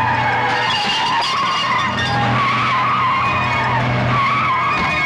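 Car tyres squealing in a long, wavering screech over a steady engine drone, as in a film car chase.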